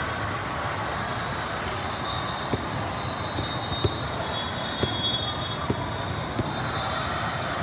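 Many-court volleyball tournament hall: a steady din of players and spectators talking, with scattered sharp slaps of balls being hit and bouncing on several courts, and a few brief high tones.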